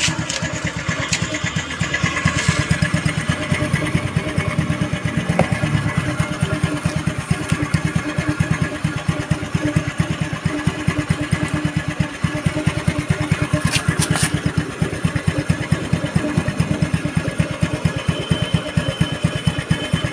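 TVS Scooty's single-cylinder engine idling steadily, a fast even putter, with a couple of sharp clicks about two-thirds of the way through.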